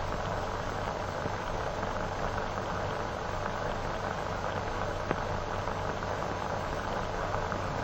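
Steady hiss and low hum of an old film soundtrack, with a few faint crackling clicks.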